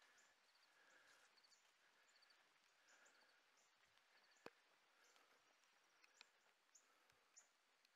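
Near silence: faint outdoor ambience with scattered short, high chirps and ticks, and a single sharp click about halfway through.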